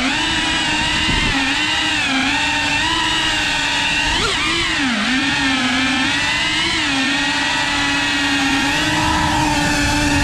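FPV quadcopter's electric motors and propellers whining steadily, the pitch sagging and rising again several times as the throttle is worked.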